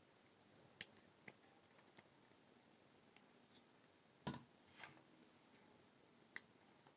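Faint, scattered clicks and taps of small metal jewelry tools and brass wire being handled, about six in all, with a short sharper clatter a little past four seconds in.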